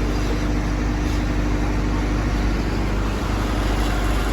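An engine or machine running steadily: an even drone with a constant low hum.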